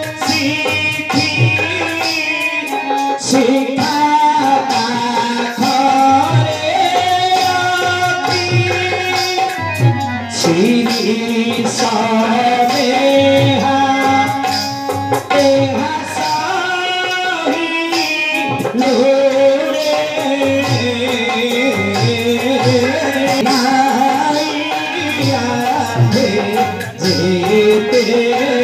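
Bharat Leela folk-theatre song: a singer's amplified voice carrying a melody over a two-headed barrel drum played in a steady rhythm, with keyboard accompaniment.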